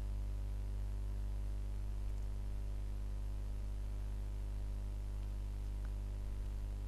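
Steady low electrical hum with a faint hiss over it, unchanging throughout.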